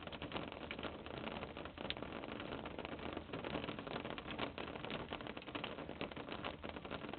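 Muscovy ducklings shuffling and pecking in wood-shavings bedding: a continuous crackle of many small irregular scratches and rustles over a steady hiss.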